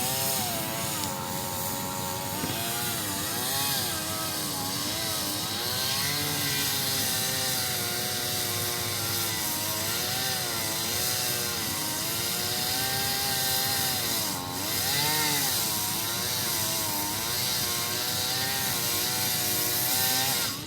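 Chainsaw running under load while cutting wood, its engine pitch repeatedly dipping and rising as the chain bites in and frees up.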